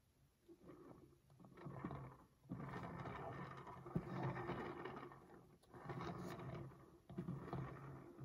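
Plastic display turntable rotating under a small LEGO model, its base giving a rumbling, scraping whir that comes in several stretches with short breaks.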